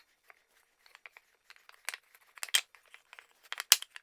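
Freshly cut wooden drawer pieces being handled and set up against each other: scattered light knocks and taps of wood on wood, the loudest near the end.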